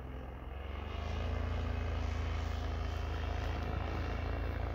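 Vittorazi Moster 185 single-cylinder two-stroke paramotor engine droning overhead in flight, growing louder and slightly higher about a second in.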